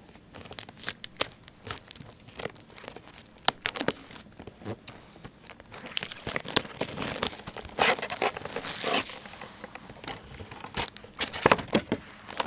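Plastic shrink-wrap being torn and crinkled off a sealed box of trading cards, with a dense run of crackling about six to nine seconds in and scattered crinkles and clicks around it.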